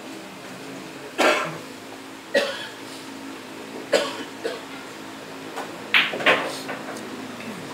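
Sharp clacks of pool balls and cue tip during play on a pool table, a close pair of hits about six seconds in, like a cue strike followed by the cue ball hitting an object ball. A cough about a second in.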